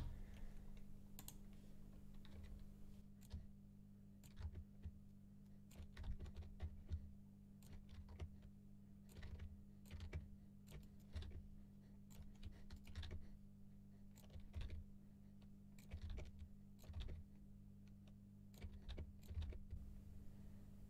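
Computer keyboard keys being pressed in short, irregular runs of faint clicks, over a steady low hum.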